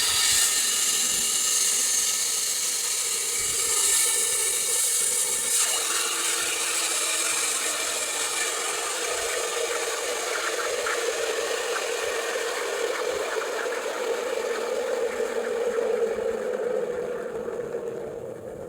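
Espresso machine steam wand hissing as it steams milk, the nozzle immersed in the milk. A steady low tone joins the hiss about six seconds in, and the sound fades near the end.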